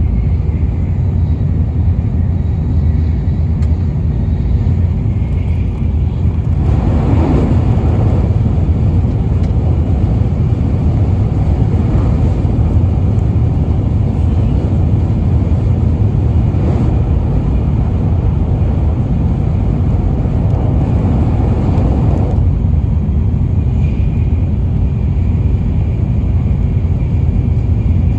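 Cabin noise inside a Tokaido Shinkansen bullet train running at high speed: a steady deep rumble with rushing noise. It grows louder and hissier from about seven seconds in and settles back near twenty-two seconds, over the stretch where the train crosses a river.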